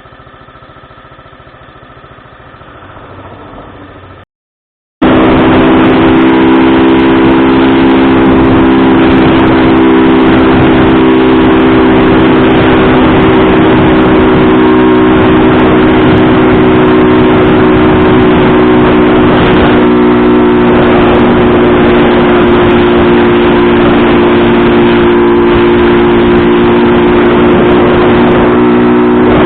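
An engine running steadily at constant revs, very loud and distorted on the microphone, with a noisy rush over it. It starts suddenly after a brief dropout about four seconds in; before that there is only a quieter steady background.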